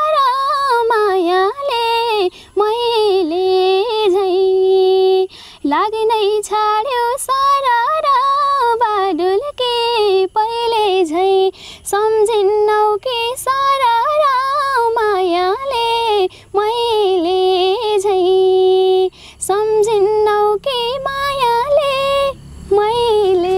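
A woman sings a Nepali lok dohori folk song solo and without accompaniment. Her phrases are ornamented and wavering, each settling on a long held note, with short breaths between lines.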